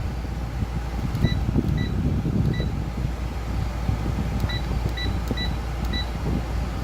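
Air conditioner running with its compressor on, a steady low hum, while its control gives seven short electronic beeps, three and then four, as the temperature is set back to 70.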